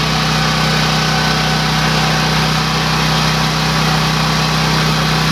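Ridgid RD6800 generator's Yamaha 360 single-cylinder engine running at a steady speed, an even hum that does not change.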